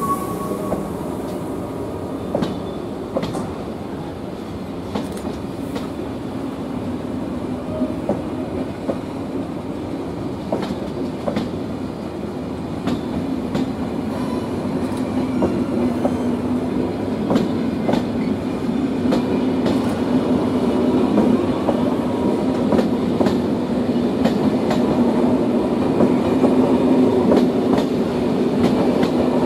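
TER passenger coaches rolling past, wheels clicking over rail joints in an irregular run of clacks. A steady hum grows louder through the second half.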